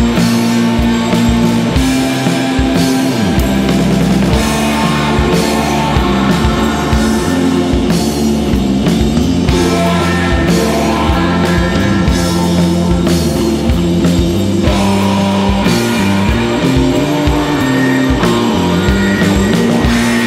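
Instrumental post-rock band playing live: looped guitars and bass over a steady drum beat, loud and dense throughout.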